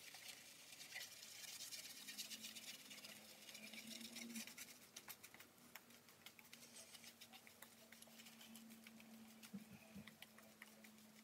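Semogue shaving brush working lather onto the face: a faint, irregular crackly swishing of bristles and foam on skin and stubble, with a faint steady hum behind it.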